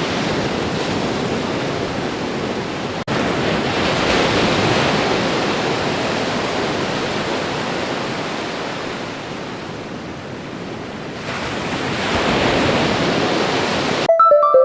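Sea waves washing onto a shore: a steady rushing that swells, eases off around the middle and builds again. The sound drops out for an instant about three seconds in, and music with pitched notes comes in right at the end.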